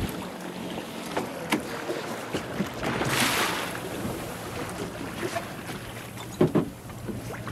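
Small motor boat's engine running slowly, with water sloshing along the hull and wind on the microphone. A louder rush of water about three seconds in, and a couple of sharp knocks near the end.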